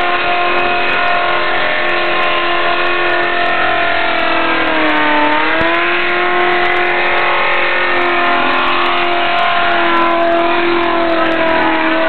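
Ford XE Falcon engine held at high revs through a burnout, rear tyres spinning on the pad. The revs sag about five seconds in and then climb back, rising and falling slightly as the driver holds the wheelspin.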